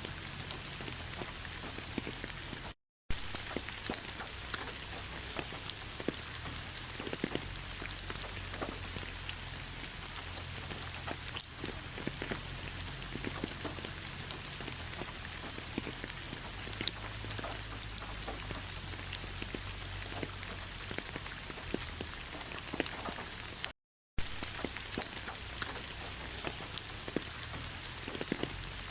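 Steady rain falling on a bed of fallen leaves, a dense even patter with many small individual drop taps. The sound drops out to silence twice, briefly, about three seconds in and again near the end.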